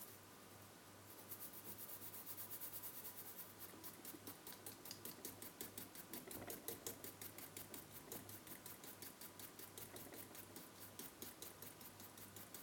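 Quick, even scrubbing strokes of a brush on a circuit board, about five a second, cleaning away solder flux around a freshly soldered chip.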